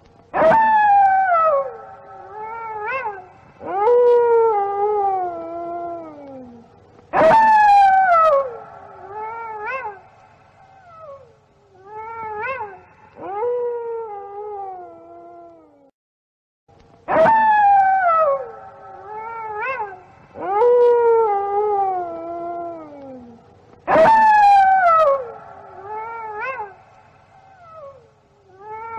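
A pack of wolves howling: several long howls overlap, each starting high and sliding down in pitch, with shorter rising-and-falling calls among them. The chorus comes in four bursts, each opening with a loud howl, with a brief silence in the middle.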